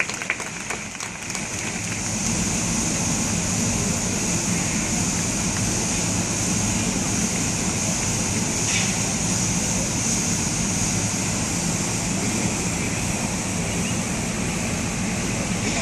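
Scattered claps dying away in the first second or so, then a steady rushing noise with a low hum.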